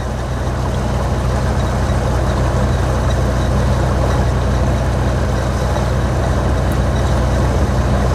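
Land Rover Defender 90's Td5 five-cylinder turbo-diesel engine running steadily at low revs over a broad, even rush of noise, growing a little louder over the first couple of seconds.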